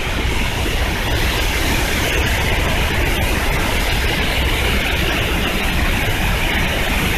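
Zongo Falls, a large waterfall, rushing close by: a loud, steady noise with a deep rumble beneath it.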